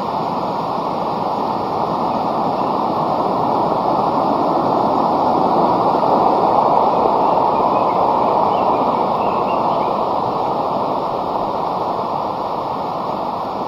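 Steady, loud rush of flowing water, swelling slightly around the middle.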